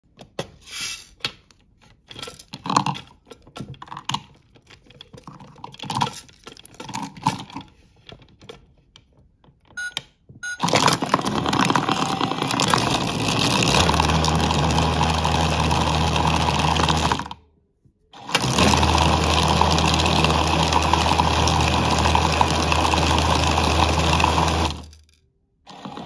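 Plastic clicks and knocks as toy figures are handled and the toy washing machine's door is worked, then about ten seconds in the toy's drum motor starts: a loud steady whir with fast rattling as the plastic figures tumble in the drum, with a low hum joining a few seconds later. It cuts out briefly, starts again, and stops shortly before the end.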